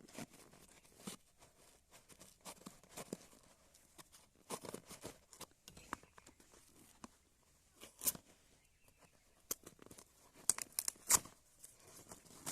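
Product packaging being torn open and handled by hand: a scattered string of short rips, rustles and clicks, loudest about eight and eleven seconds in.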